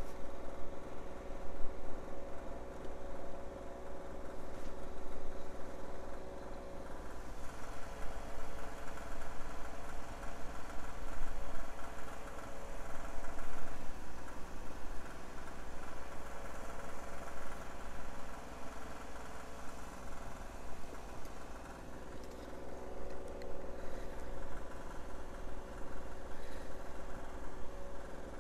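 Portable generators running steadily: a constant engine hum with a few held tones.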